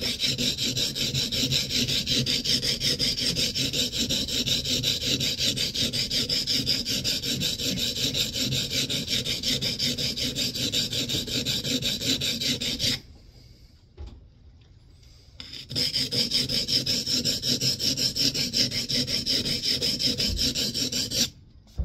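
Steel scrub plane iron rubbed back and forth on the coarse side of a Norton oilstone lubricated with WD-40, in a rapid, even run of gritty strokes. The strokes stop for about two seconds about 13 s in, then start again. The cambered bevel is being honed down to where a wire edge forms.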